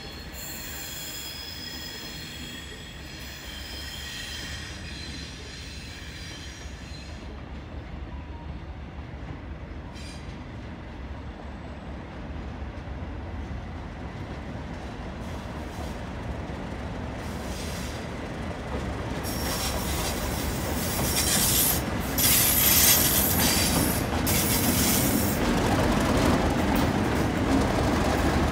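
Two Class 37 diesel locomotives running light, their English Electric engines growing steadily louder as they approach and pass close by. Steel wheels squeal high-pitched on the track, fading over the first few seconds and then loud again for several seconds about two-thirds through.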